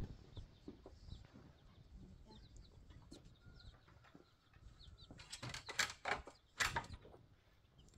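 Chickens clucking and small birds chirping, with a sharp click at the start and a few loud rustling, scuffling bursts about five to seven seconds in.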